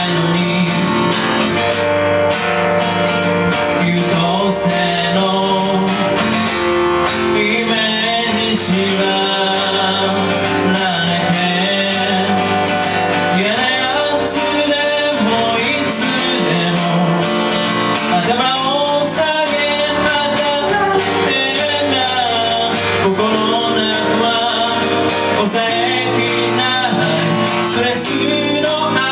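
Live acoustic pop song: strummed acoustic guitar and a keyboard playing together, with a voice singing over them.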